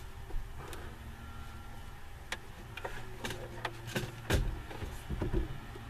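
Clicks and knocks of an overhead TV in a conversion van being handled and fitted back into its ceiling mount: scattered sharp taps from about two seconds in, the loudest near four seconds, over a low steady hum.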